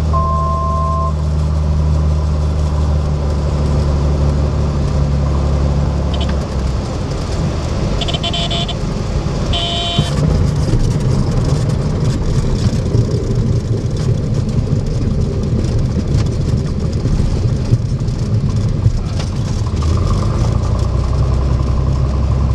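Cessna 182's piston engine and propeller heard from inside the cockpit during a landing: a steady drone that drops back about six seconds in as power comes off. Two short horn-like tones sound around eight and ten seconds in, followed by a knock and the rumble of the wheels rolling on the runway.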